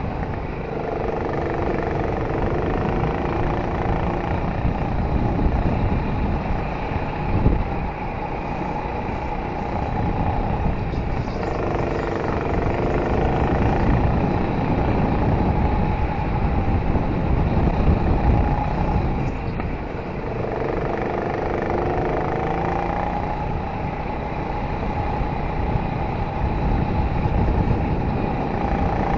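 Go-kart engine running hard through a lap. Its pitch drops about every ten seconds as the kart slows for a corner, then climbs again on the straight, over a heavy low rumble.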